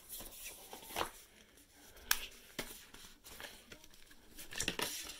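Cardboard phone box and its paper inserts being handled: scattered light clicks and rustles, with one sharp tap about two seconds in.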